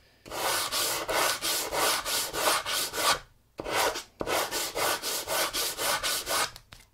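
Hand sanding the edge of a hardwood cutting board with a wooden block wrapped in 120-grit sandpaper: quick, scratchy back-and-forth strokes, about four a second, with a brief pause a little past halfway. The block is held at an angle to chamfer the edge and sand away small clamping bumps.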